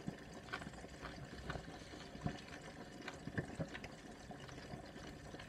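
Quiet room hiss with faint, scattered clicks and soft knocks at uneven intervals.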